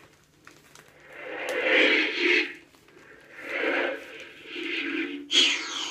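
Comedy sound effects vinyl record playing through a portable suitcase record player's small speaker: three swelling noisy effects, then near the end a sudden sound that falls in pitch.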